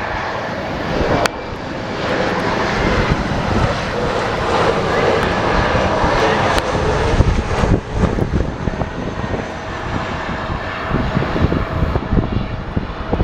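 Airplane engine noise from an aircraft passing close, swelling to its loudest in the middle and easing off near the end, with strong wind buffeting the microphone.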